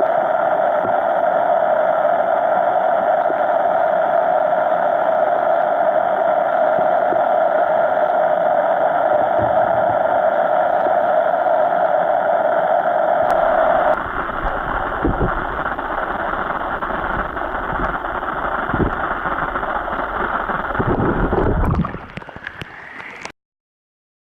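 Steady loud rush of a mountain trout stream. Its sound shifts about halfway through, a few dull low thumps come near the end, and then it cuts off suddenly.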